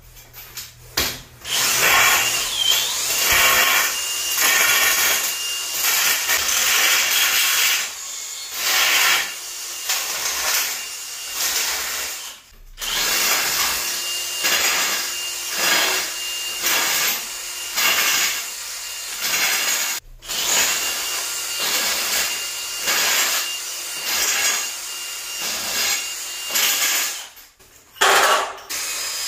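Cordless drill working the ends of metal conduit tubes in short bursts of about a second each, over and over, with a few brief pauses.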